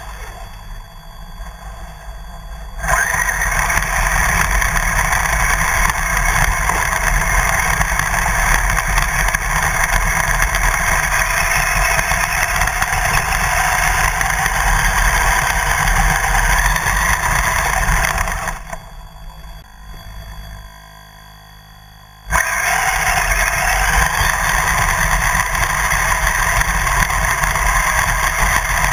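RC car driving fast over grass, heard from a camera mounted on its body: a loud, steady rush of motor, drivetrain and rattle. It starts suddenly about three seconds in, drops away for a few seconds past the middle, then comes back just as suddenly.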